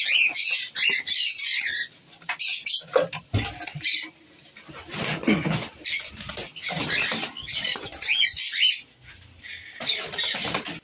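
Lovebirds in a wire cage giving quick high-pitched chirps and squeaks, with wings fluttering as one flaps about the cage.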